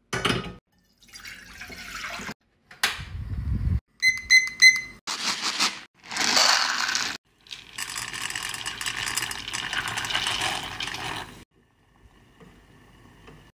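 Water poured in separate short takes, with a hissing pour lasting a few seconds near the middle. Short knocks and bursts come before it, and a few quick beeps come about four seconds in. Only a faint low sound is left near the end.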